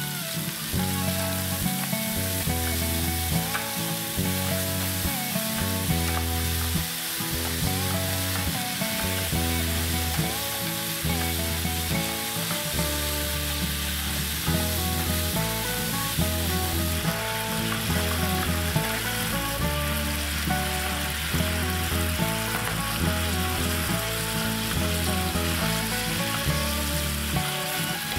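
Tomato sauce sizzling in oil in a non-stick frying pan, stirred with a wooden spatula, over background music with a repeating bass line.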